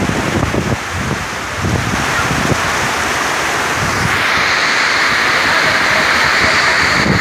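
Heavy tropical rain coming down in a steady hiss that thickens about two seconds in and grows heavier again about four seconds in, as a second downpour arrives. Wind buffets the microphone in the first half.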